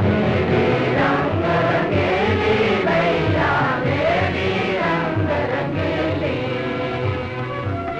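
Opening title music of a 1940s documentary soundtrack: a choir singing over instrumental accompaniment.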